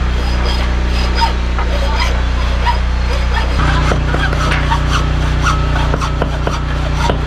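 Hacksaw sawing a workpiece held in a bench vise, with repeated scraping strokes over a steady low hum.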